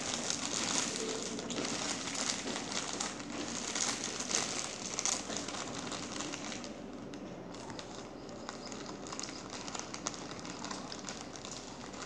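Plastic bread bag crinkling and rustling as it is handled, busiest for the first six seconds or so and then thinner.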